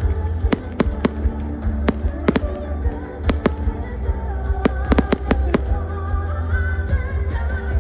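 Fireworks going off in a rapid, irregular string of sharp bangs, thickest about halfway through, over music playing throughout.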